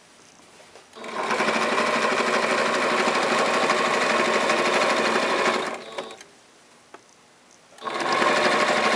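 Singer electric sewing machine stitching binding onto a quilt: it starts about a second in, runs steadily for several seconds and stops. After a short pause and a single click, it starts again near the end.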